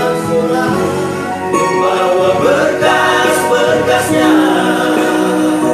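A male vocal group of six singing together, with instrumental accompaniment.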